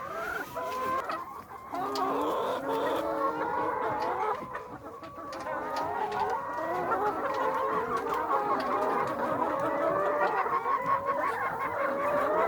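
A large flock of laying hens clucking and calling together, many overlapping voices at once.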